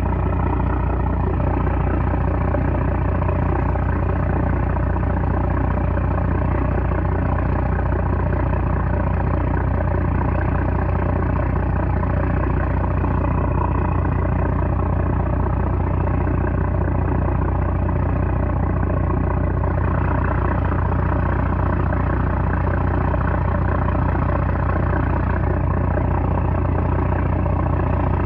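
A 330-horsepower trawler's diesel engine running steadily with a deep, even hum.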